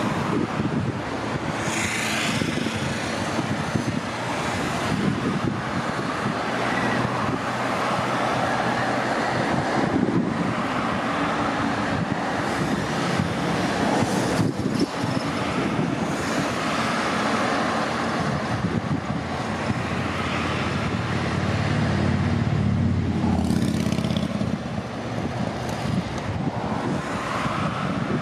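Steady road traffic on a highway: cars passing one after another, their tyre and engine noise swelling and fading. A deeper engine rumble rises a little past twenty seconds in.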